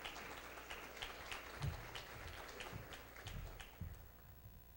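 Faint, scattered audience applause that dies away near the end, with a few soft footsteps.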